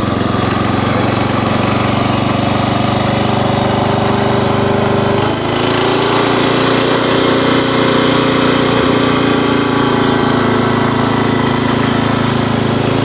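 Hot rod tractor's engine running steadily while being ridden. About five seconds in the note shifts with a brief dip in loudness, then climbs slightly.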